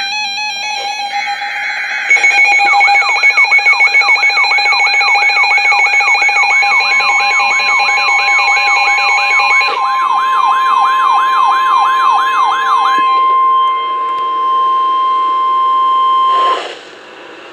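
Emergency alert tones: a fast electronic siren sweeping up and down about three times a second over steady beeping tones, joined about a third of the way in by the steady single-pitched NOAA Weather Radio warning alarm tone. The alarm tone runs about ten seconds and cuts off suddenly near the end, signalling that a warning message follows.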